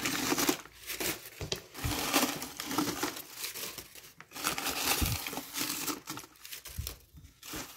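Crumpled paper and plastic waste rustling and crinkling in a plastic dustbin as it is handled, in irregular bursts.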